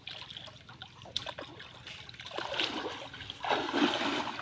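Shallow pond water splashing as a person wades through it knee-deep: small splashes at first, growing louder about two seconds in.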